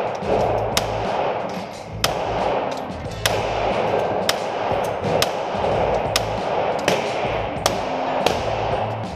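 Glock 17 9mm pistol fired about ten times at an uneven pace of roughly one shot a second, each crack echoing in an indoor range. Background music with a steady bass plays underneath.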